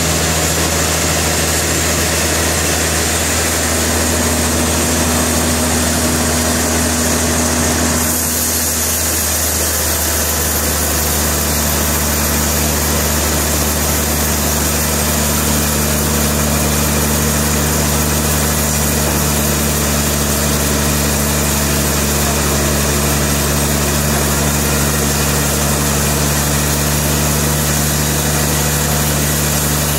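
A large engine running steadily, most likely the sawmill's power unit, with an abrupt change in its tone about eight seconds in.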